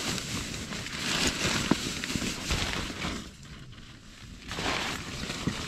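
Nylon outdoor gear rustling as it is handled: a gear bag rummaged through and a down sleeping bag pulled about. It comes in two spells, with a lull a little past three seconds in.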